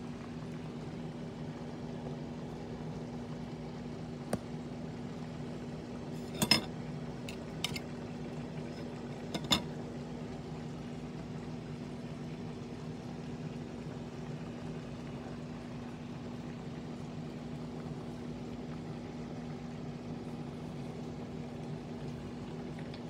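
A steady low machine hum with a few fixed pitches, broken by a handful of sharp tableware clinks between about four and ten seconds in, the loudest about six and a half seconds in.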